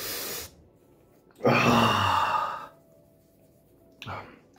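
A man's heavy sigh of disgust: a short hissing breath at the start, then about a second and a half in a long, loud breath out with some voice in it.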